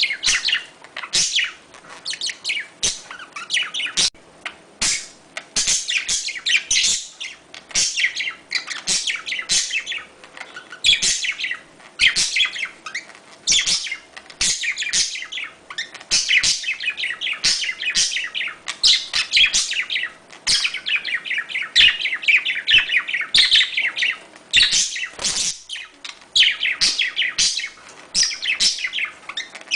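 Budgerigars chirping in quick, continuous short calls, the chatter of courtship and mating calls.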